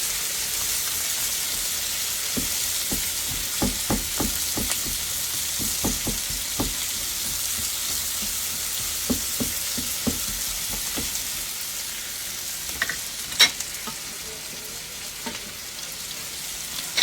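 Sliced onion and green bell pepper sizzling in butter and olive oil in a cast iron skillet, a steady hiss. A utensil stirring in the pan makes many short taps through the first two-thirds, with a sharper click later on.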